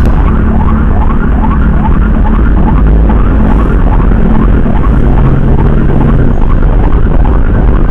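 Emergency siren sounding in rapid, repeated rising sweeps, about three a second, over a heavy engine and road rumble.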